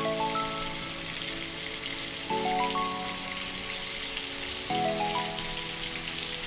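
Fish fillets shallow-frying in oil in a pan: a steady sizzle with fine crackles. Over it plays background music, a chord struck three times about every two and a half seconds, each followed by a few rising notes.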